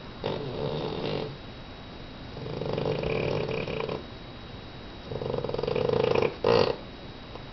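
Sleeping Boston terrier snoring: three snores about a second or more long, a couple of seconds apart, the third the loudest and ending in a short, louder burst.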